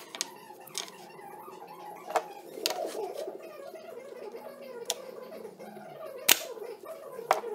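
Wooden parts being handled and knocked against a wooden work surface, with a few sharp clicks. About six seconds in a handheld nail gun fires once into the alder body, the loudest snap.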